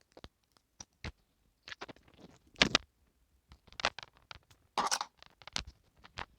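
Adhesive tape being cut and handled: a series of small clicks and brief scratchy scrapes, the loudest about two and a half seconds in and another near five seconds.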